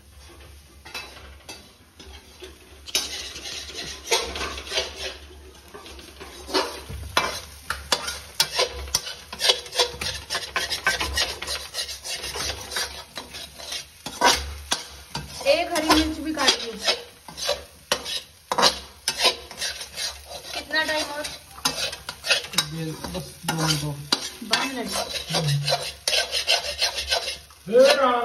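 Metal slotted spatula stirring and scraping scrambled eggs around a large metal kadhai, a quick run of scrapes over the eggs sizzling, starting a few seconds in.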